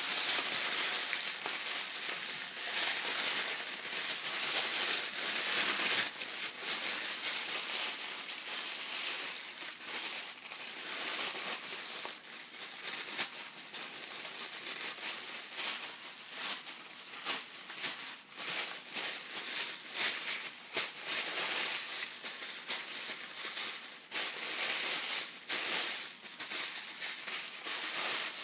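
Thin gift tissue paper being handled and crumpled, a continuous dense crinkling and rustling with frequent sharp crackles, louder and softer as the hands work it.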